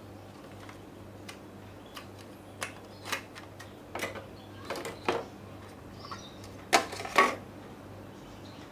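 Scattered clicks and knocks of a small hard case and its packaging being handled and opened, with the two loudest knocks close together about seven seconds in.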